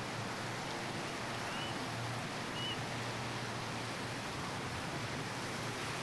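Steady rushing of strong wind, an even hiss with no let-up.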